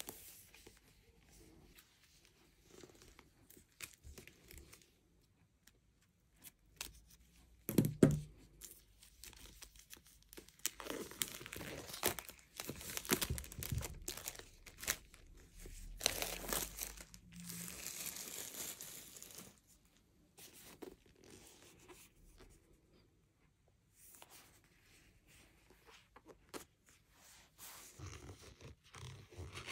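Plastic shrink-wrap being torn open and peeled off a hardcover notebook by hands in disposable plastic gloves, crinkling and crackling. There is a sharp tear about eight seconds in and the busiest crinkling comes in the middle, with quieter rustling handling near the start and end.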